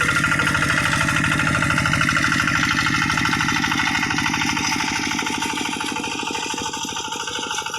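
Kubota RD85 DI single-cylinder diesel engine of a hand tractor running with an even, rapid beat, growing slowly quieter toward the end.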